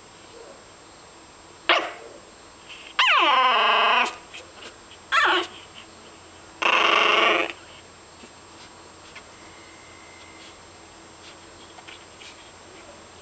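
Fawn pug puppy barking four times in the first half, the second bark drawn out and falling in pitch.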